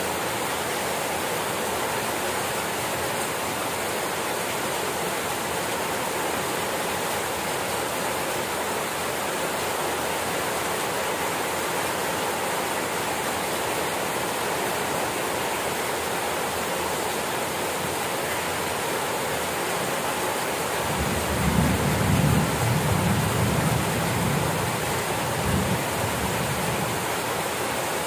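Steady rain falling, an even hiss. About twenty seconds in, a low rumble swells for a few seconds and fades.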